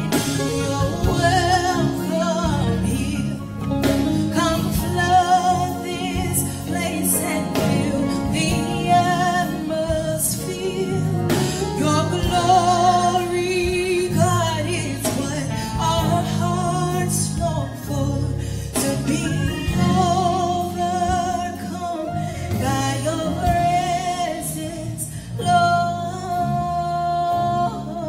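Gospel worship music: sustained singing with a wavering vibrato over instrumental accompaniment.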